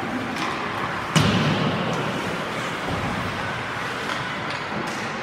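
Ice hockey play in an arena: steady rink noise, with one loud sharp bang about a second in that trails into a brief low rumble, and a few fainter knocks.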